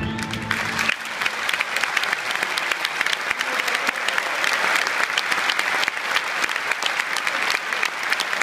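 A large arena audience applauding, a dense steady clatter of many hands. In the first second the orchestra's final chord is still ringing, then it stops and only the applause goes on.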